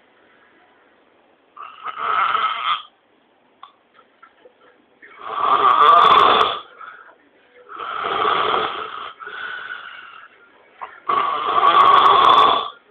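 A man snoring loudly: four long, rasping snores about three seconds apart, with quiet breaths between them.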